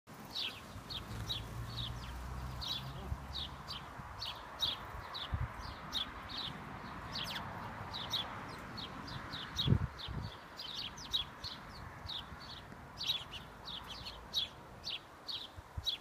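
House sparrow chirping over and over, short cheeps at about three a second. Two low, muffled thumps come about ten seconds in.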